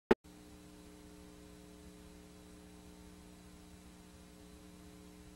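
A short click right at the start, then a faint, steady electrical mains hum with light hiss.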